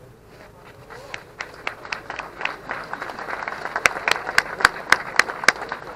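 Crowd applauding, building from about a second in, with loud claps close by at about four a second near the end.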